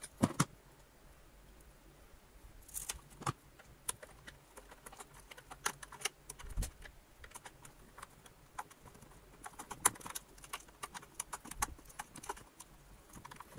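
Scattered small clicks and taps of a screw, washer and wire terminal being fiddled into place by hand and with a screwdriver on a vacuum cleaner motor's terminal, thicker about two-thirds of the way through.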